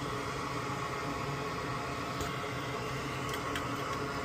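Steady whir of a small electric fan with a low hum, and a few faint light ticks about halfway through and near the end.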